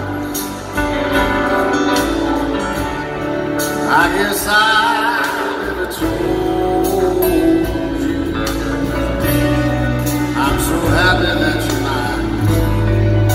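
Live band playing a slow country ballad with singing, heard from the audience in an arena.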